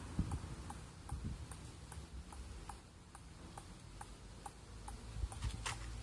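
Ping-pong ball bouncing repeatedly on a table-tennis paddle: light, sharp ticks at about two a second, a little louder near the end.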